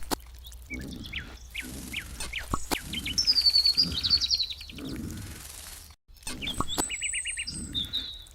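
Small birds chirping and trilling, with quick pitch glides and a rapid pulsed trill, over a low background of animal sounds. The sound drops out briefly about six seconds in.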